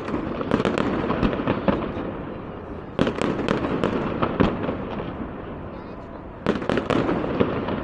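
Fireworks bursting overhead in three volleys of sharp bangs and rapid crackling. The loudest volley starts suddenly about three seconds in, and another comes near the end.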